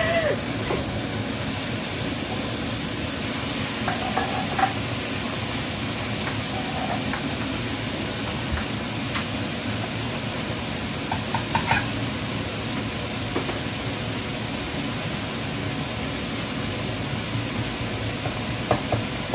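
Food sizzling in a frying pan, with a few light clicks and knocks of a cooking utensil against the pan, about four seconds in, around twelve seconds in and near the end.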